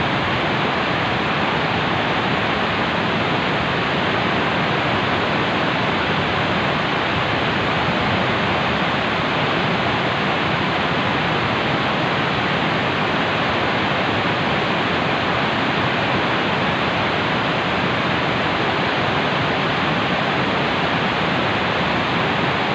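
Steady, loud rush of a swollen, muddy river flowing fast.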